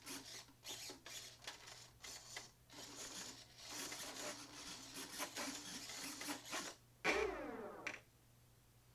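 Faint mechanical clicking and whirring, followed about seven seconds in by a short whine that falls in pitch.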